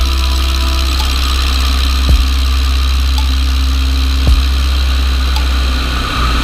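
Tiger Moth biplane's piston engine and propeller droning steadily in flight, heard from a wing-mounted microphone with wind noise on it. Sharp thumps come once about two seconds in and again a little after four seconds.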